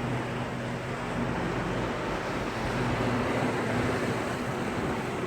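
Sea waves breaking and washing in a steady roar of surf, swelling a little louder in the middle.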